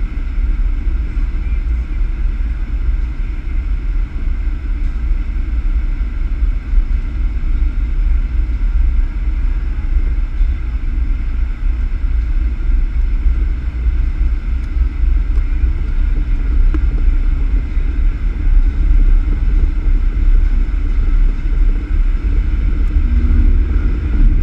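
Vehicle driving down a road, heard from a camera mounted on its hood: a steady low rumble of wind, road and engine noise.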